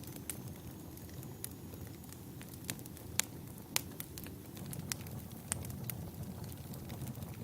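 Logs burning in a fireplace: a steady low rumble of flames with irregular sharp crackles and pops, a few louder snaps around the middle. A faint high whistle sounds in the first second.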